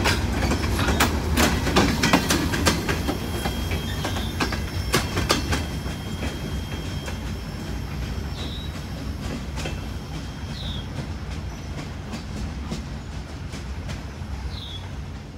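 Freight train of open-top gondola cars rolling past, its wheels clicking over the rail joints with a low rumble, growing fainter as the cars move off. Three short high chirps sound over it in the second half.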